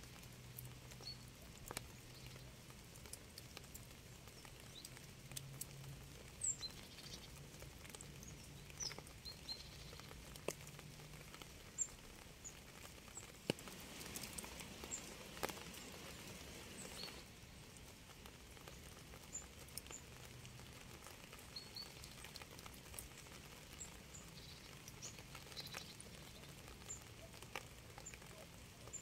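Rain pattering steadily, with scattered louder drip clicks and short high bird chirps now and then.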